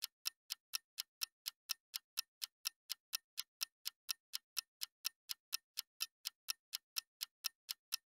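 Steady, evenly spaced sharp ticks, about four a second, with dead silence between them.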